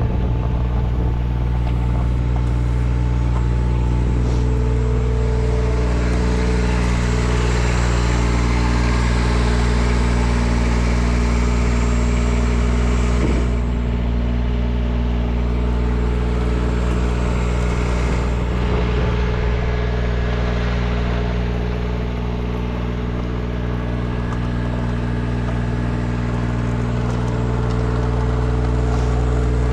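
An engine running steadily at a constant speed, with a broader hiss rising over it at times.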